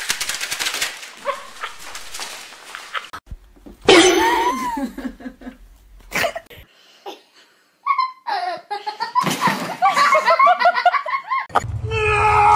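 People laughing, loudest about four seconds in and again later on, after a stretch of rattling, clattering noise at the start.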